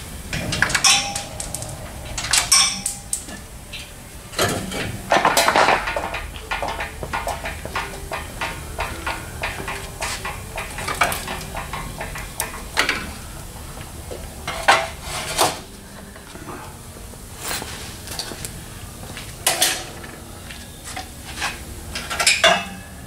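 Metal front-end parts and bolts being handled and fitted to a truck's front end: irregular clinks, knocks and rattles of metal on metal, some followed by brief ringing.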